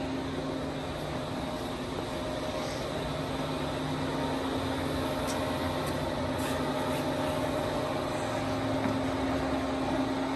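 Steady machinery hum with several constant tones over a rushing noise, like a machine running continuously in a machine shop. The pitch shifts slightly a few times.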